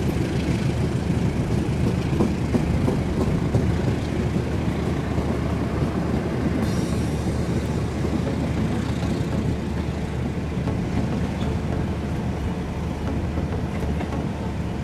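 Diesel passenger train moving slowly along the tracks, a steady low rumble of engine and wheels.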